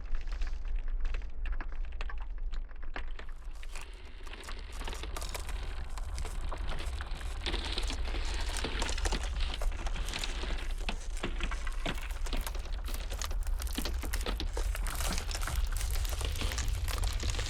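Iceberg ice crackling and snapping in a dense run of small sharp cracks, over a steady low rumble of blizzard wind. The crackling thins briefly about four seconds in, then picks up again.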